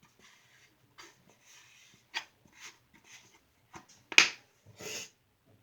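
Plastic shampoo bottle being emptied into a plastic tub: scattered short clicks and brief squirting sounds, the loudest about four seconds in.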